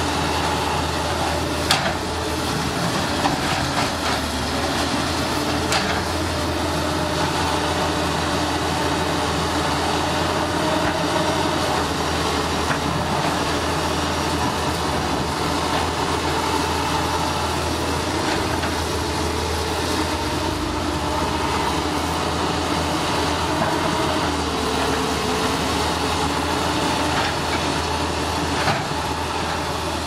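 Heavy tracked earthmoving machinery running: excavator and bulldozer diesel engines at a steady working drone, with a few sharp clanks of metal tracks and buckets scattered through.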